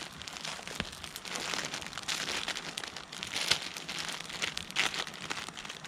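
Plastic ramen noodle packet crinkling and crumpling as it is handled and torn open: irregular rustling with scattered sharp crackles, heaviest from about a second in to near the end.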